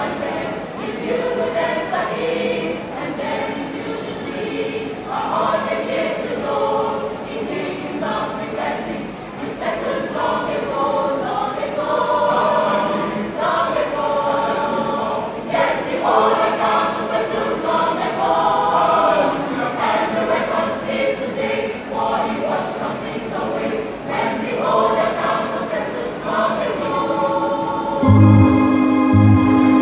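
Choir singing in parts, with many voices together under a conductor. About two seconds before the end, a loud, steady low chord cuts in over them and is the loudest sound.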